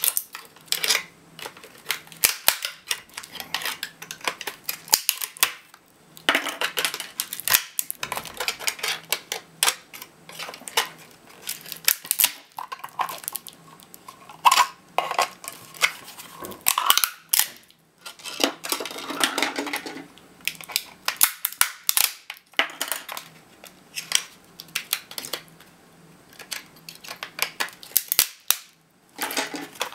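Plastic case of an HP HSTNN-IB51 laptop battery pack being pried and broken apart with pliers and a screwdriver: a long irregular run of sharp cracks and snaps, with a few stretches of scraping and rattling.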